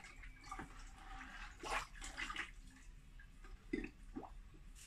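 Liquid pottery glaze sloshing and dripping in irregular splashes, the loudest nearly four seconds in.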